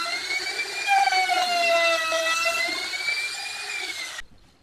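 Handheld trim router running at speed as its bit cuts a groove in MDF board, a high whine whose pitch dips and rises as the bit takes more or less load. It stops suddenly near the end.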